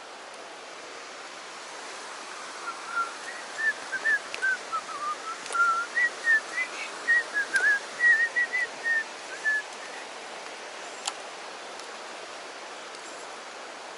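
Fast stream water rushing steadily over rock. From about three to ten seconds in, a run of some twenty short whistled notes rises and falls in pitch, the loudest sound here, with a few sharp ticks scattered through.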